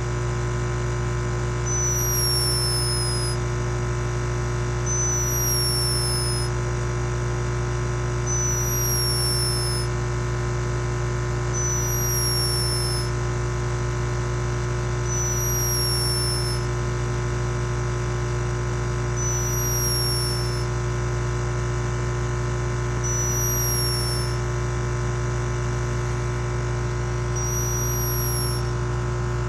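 Sleeping hummingbird snoring: eight thin, high-pitched whistles, one about every three seconds, each about a second and a half long and sliding slightly down in pitch. They sit over a louder steady electrical hum.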